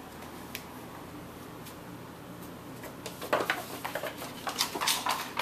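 Quiet room tone, then, about three seconds in, a run of quick clicks, taps and scuffs: cats scrambling on a hardwood floor after a laser dot.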